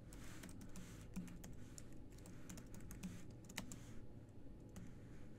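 Typing on a computer keyboard: a faint, quick, irregular run of key clicks.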